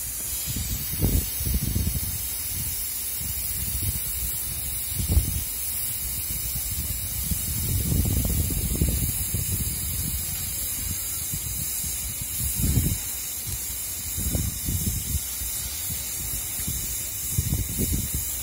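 TechnoAlpin V2 lance snowgun making snow: a steady high hiss of water and air jetting from the nozzles at the top of the lance, with irregular low rumbles coming and going.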